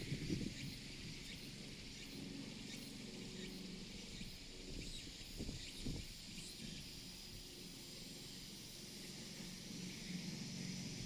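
Outdoor background noise: a steady high hiss over a low rumble, with a few soft knocks near the start and again about five to six seconds in.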